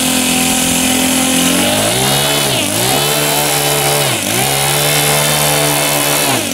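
Model airplane engine on a Great Planes Seawind RC seaplane being run up while the plane is held in the shallows: idling, then revved up about a second and a half in and held at high throttle, dipping briefly twice before dropping back to idle at the end.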